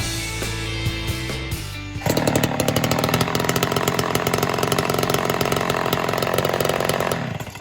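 Background music for about two seconds, then a ported Homelite Super XL-130 two-stroke chainsaw, its ignition timing advanced, cuts in abruptly running at high speed for about five seconds and drops off near the end.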